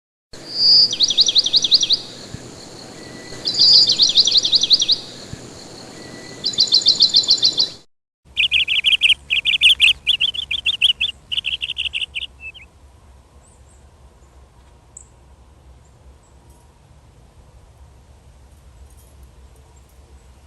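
Small birds calling: three short, rapid trills, each led by a higher note. After a brief break comes a run of loud, fast chip notes that stops about twelve seconds in, leaving only faint background sound.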